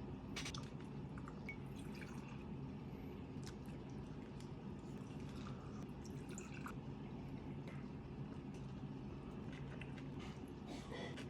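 Small wet chewing and mouth sounds of someone eating stir-fried spicy pork: scattered soft clicks and squishes over a steady low hum.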